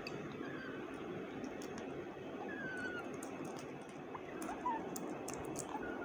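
A rose-ringed parakeet chick giving a few faint, thin chirps that slide slightly downward, over a steady low hum. Light clicks are heard from about halfway in.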